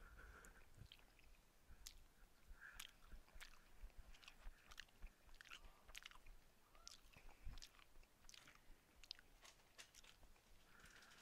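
Faint, close-up chewing: a person eating, with many short, irregular wet mouth clicks and smacks, picked up near the mouth by a headset microphone.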